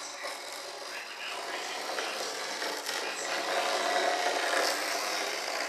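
Continuous scraping and rubbing as hands and a small hand tool work along the edge of a fiberglass mold.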